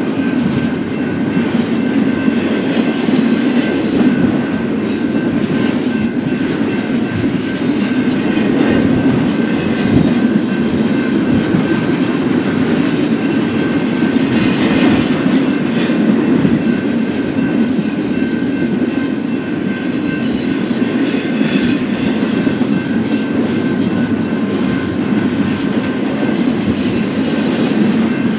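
BNSF double-stack intermodal freight train rolling past, a steady loud rumble of wheels on the rails with a faint thin high tone above it.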